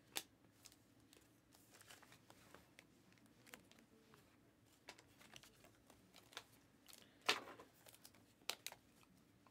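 Faint handling noise of trading cards and a foil card pack: scattered soft clicks and rustles, with a louder crinkle about seven seconds in and two short ones about a second later.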